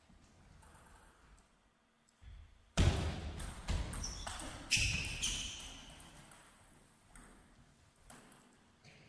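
Table tennis rally: the celluloid ball clicking off the rackets and bouncing on the table, a run of sharp hits about half a second apart starting about three seconds in and stopping when the point ends.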